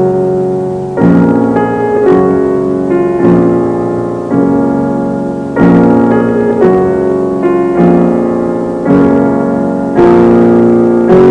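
Piano music: chords struck about once a second, each ringing and dying away before the next.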